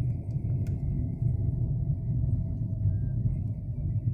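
Steady low rumble of a car driving on a paved road, engine and tyre noise heard inside the cabin.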